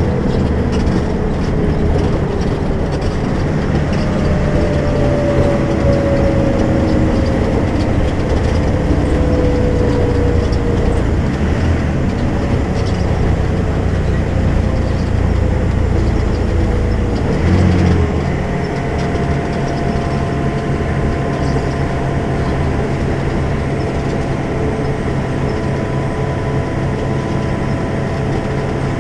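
Volvo B12M bus's 340 hp diesel engine with ZF gearbox, running under way as a steady low drone. A whining tone falls in pitch over the first ten seconds or so. About 17 seconds in there is a brief change, after which the low drone is weaker.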